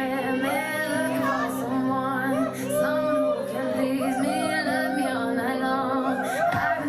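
Music for a stage dance routine: a high female vocal sings a melody over held backing chords. The deep bass is dropped out until the very end.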